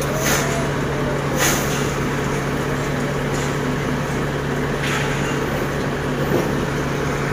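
Heavy diesel engine idling steadily with a constant low hum. Three brief sharp sounds stand out: near the start, at about one and a half seconds, and about five seconds in.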